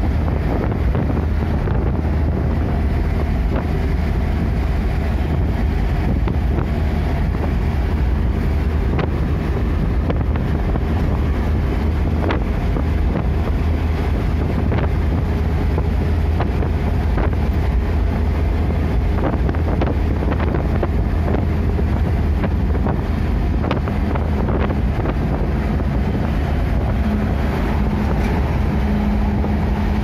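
Steady low rumble of engine and road noise heard inside a moving vehicle at highway speed, with some wind noise. A low steady hum joins about two-thirds of the way through.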